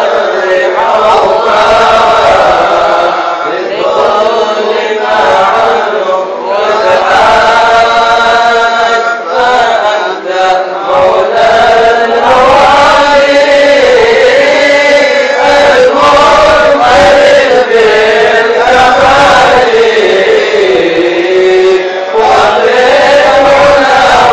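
Many men's voices chanting together in unison, a slow melody that rises and falls, with short breaks between phrases about ten seconds in and again near the end.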